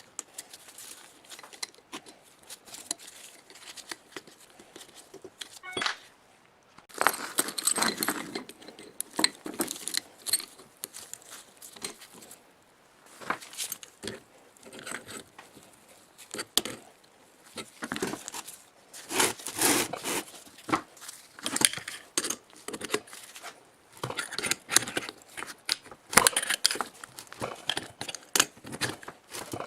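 Hands working on an old electric motor: irregular metallic clicks, clinks and short scraping rustles in bursts, with no motor running.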